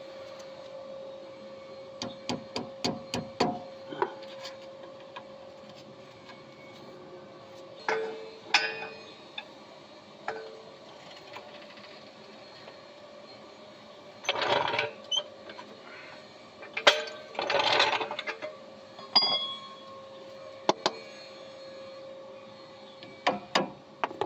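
Scattered metal clicks, clinks and knocks of hand tools and a jack on a car's front suspension as the jacked-up knuckle is moved to free the strut bolt. There are two short scraping bursts about fourteen and seventeen seconds in, over a steady faint hum.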